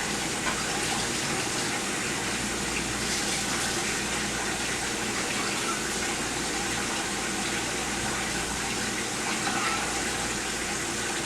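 Pot of water at a rolling boil on the stove: a steady bubbling, rushing water sound.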